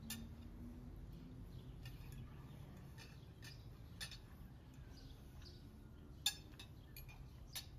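Forks and knives clinking against plates as two people eat: a handful of scattered, sharp clinks, the loudest a little after six seconds in.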